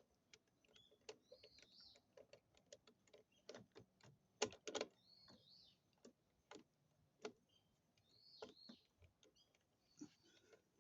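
Scattered light clicks and knocks, loudest in a quick cluster about halfway through, with small birds chirping several times in the background.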